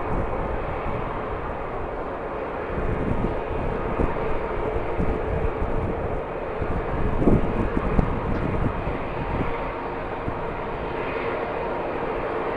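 Jet airliner engines running, a steady drone with a held whine. Strong wind gusts buffet the microphone with low rumbling in the middle, loudest about seven to eight seconds in.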